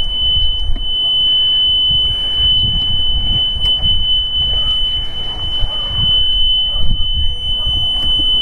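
Mercury OptiMax outboard's warning horn sounding one steady high-pitched tone without a break: a fault alarm whose cause is unknown, with the oil full and nothing showing what triggered it.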